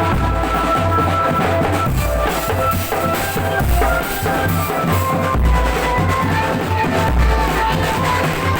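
Drum band music: bass drum and snare beating under a sustained melody line.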